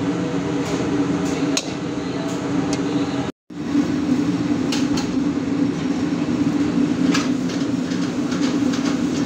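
Steady mechanical hum of a commercial kitchen with scattered metal clinks, starting with a metal ladle knocking against a wok as filling is stir-fried. The sound cuts out for a moment about three seconds in, then the hum carries on with occasional clinks.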